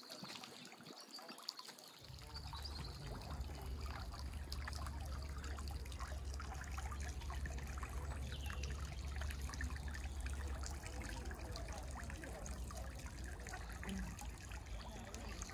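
Water trickling steadily, with a low rumble that starts about two seconds in.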